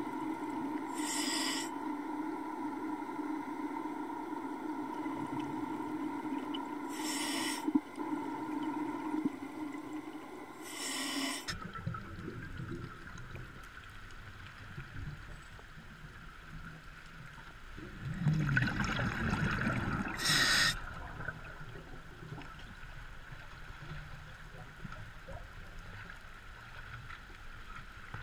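Underwater sound through a diving camera. For the first eleven seconds or so there is a steady hum with three short hisses; then the sound changes abruptly to muffled rushing water, with a louder bubbling rumble about two-thirds of the way through.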